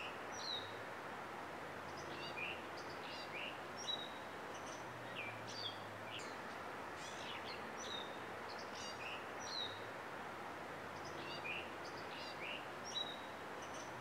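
Birds singing, a scattered series of short whistled notes and chirps, some sliding downward, over a steady hiss of outdoor background noise.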